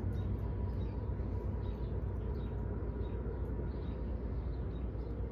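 A steady low hum with faint, scattered high chirps over it.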